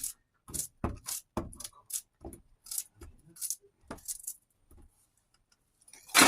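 Kitchen utensils tapping and clicking in an irregular series, about two sharp clicks a second, with a louder clatter near the end.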